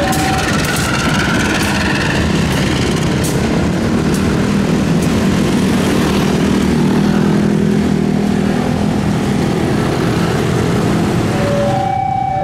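CC201 diesel-electric locomotive running as it pulls away over a level crossing, its engine drone mixed with motorcycle traffic passing close by. A two-tone level-crossing alarm starts up near the end.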